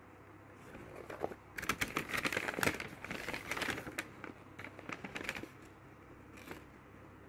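A paper pharmacy bag rustling and crinkling while boxes are handled, in a dense stretch of rustles through the middle and one short rustle near the end.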